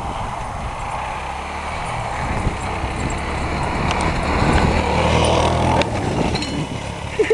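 Four-wheeler (ATV) engine running, growing louder as it comes close, then easing off a little before six seconds in.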